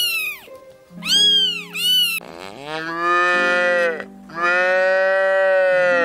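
Domestic cat meowing in short calls that rise and fall, about three of them in the first two seconds. Then a cow mooing twice in long, steady calls, over soft background music.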